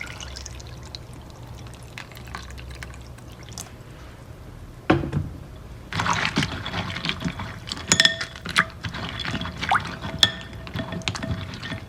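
Water poured and sloshed in a bowl as soaked dried ingredients are rinsed, starting about five seconds in, with a few sharp clinks against the bowl.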